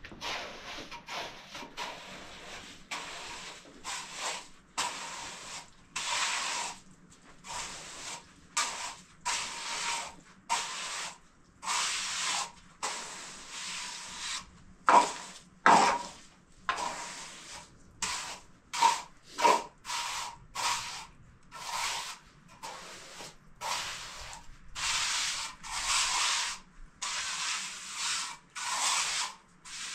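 Steady run of rough scraping or rubbing strokes, about one or two a second, with two louder, sharper scrapes about halfway through.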